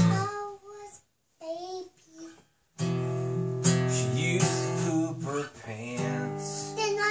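Acoustic guitar strummed in chords with a voice singing along. The sound drops out completely twice for a moment, about a second and two and a half seconds in.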